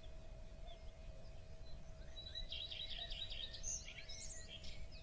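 Birds chirping over a faint steady hum and low rumble, with a quick run of rapid chirps from about halfway in.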